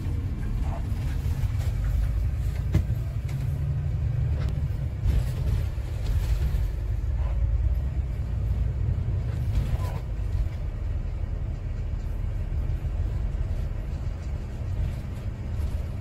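Inside a moving route bus: the steady low rumble of the bus engine and road noise, with a few brief knocks and rattles from the cabin.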